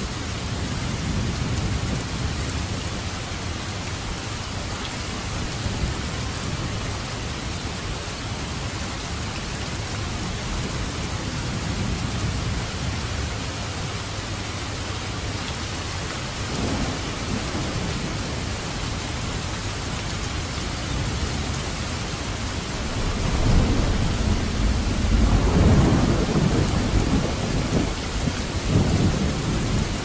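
Steady rain falling hard, with low rolls of thunder under it; the thunder swells loudest about three-quarters of the way through and again briefly near the end.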